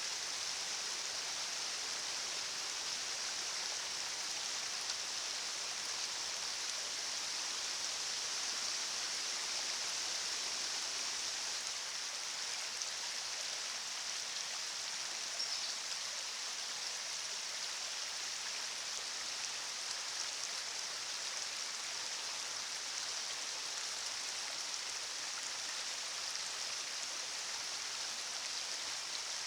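Steady rush of river water: an even hiss without breaks or rhythm.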